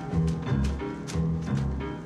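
Background music with a steady driving beat: low bass notes and sharp percussion strokes about twice a second.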